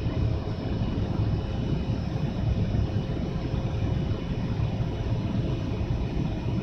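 Steady airliner cabin noise during the climb after takeoff: a constant low rumble of jet engines and airflow heard from inside the cabin, with a steady hum running through it.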